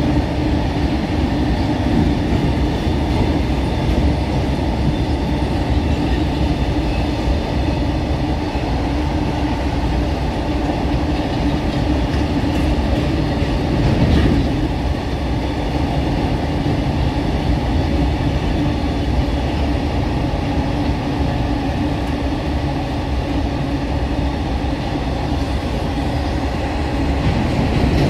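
Freight train wagons rolling past at speed, the wheels running on the rails in a steady, continuous din, with a brief louder moment about halfway through.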